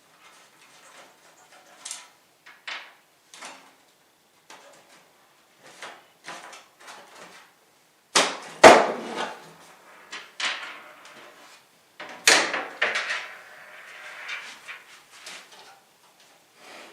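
Clicks, knocks and clatter of a desktop computer case being handled and taken apart, with two louder thuds about eight and twelve seconds in.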